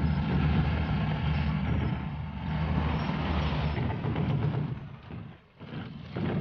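Heavy engine running with a steady low drone under a noisy rush; the sound drops away briefly about five and a half seconds in and picks up again near the end.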